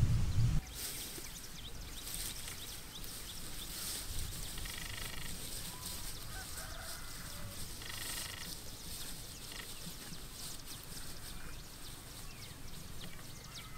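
Outdoor countryside ambience: a steady low background with scattered faint high ticks and chirps. There are two short buzzy animal calls, about five and eight seconds in. A louder low sound at the very start cuts off abruptly after half a second.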